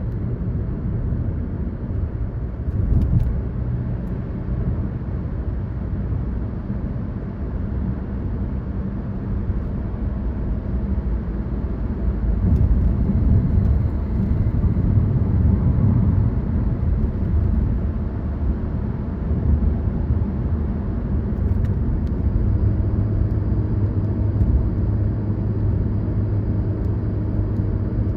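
A car driving along a road: a steady low rumble of engine and tyre noise. A steadier engine hum stands out about three-quarters of the way through.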